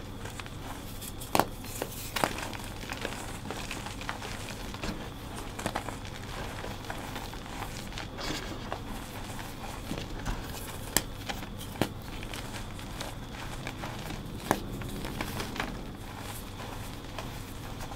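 Hands crushing reformed gym chalk into a heap of loose chalk powder: a continuous soft crunching and crumbling, broken by a few sharp cracks as chunks snap.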